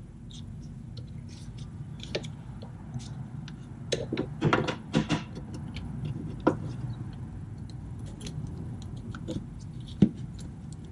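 Scattered clicks and metallic taps from a long wrench on the serpentine-belt tensioner and the belt being worked onto the pulleys by hand, with a cluster of clicks about four to five seconds in and sharp single clicks later on. A steady low hum runs underneath.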